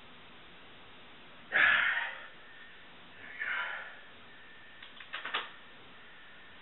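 A man's forceful breath out about a second and a half in, then another heavy breath around three and a half seconds, as he recovers from straining to bend a steel wrench by hand; a few quick light clicks follow near five seconds.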